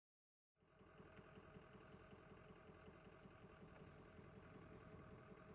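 Faint steady engine hum with a few held tones, starting abruptly about half a second in after dead silence.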